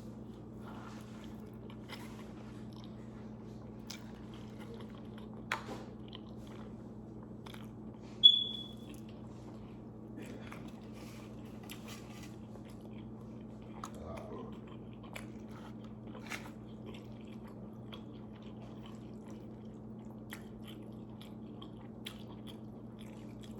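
Eating sounds: pizza and pasta being bitten and chewed, with scattered small clicks and mouth noises over a steady low hum. About eight seconds in, a short, high ping rings out briefly; it is the loudest sound.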